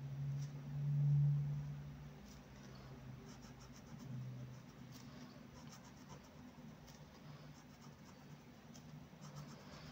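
Brush pen tip drawing strokes on notebook paper, faint scratching as the letters are thickened. A low steady hum rises about a second in and comes back more weakly near four seconds.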